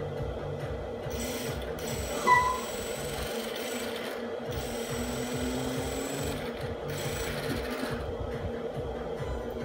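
Small electric pump motor of a 1/14-scale RC dump truck's hydraulic tipping system running steadily with a fast, even whir while the tipper bed, loaded with heavy sacks, comes down. A short, high chirp about two seconds in is the loudest moment.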